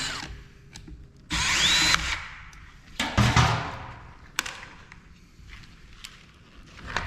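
A power drill-driver runs in one short burst about a second in, its motor whine rising as it spins up, followed a second later by a loud clatter and then scattered clicks and knocks of parts being handled during the teardown.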